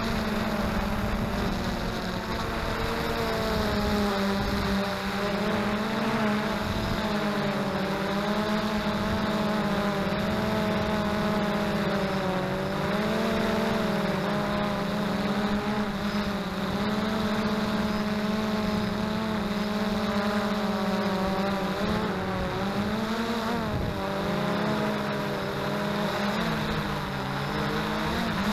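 XK Detect X380 quadcopter's motors and propellers whining in flight, the pitch wavering up and down as the motors change speed.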